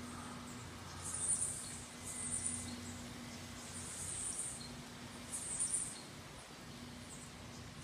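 Storm ambience outside a window: a steady hiss with four brief swells, like gusts, and a faint low hum that comes and goes.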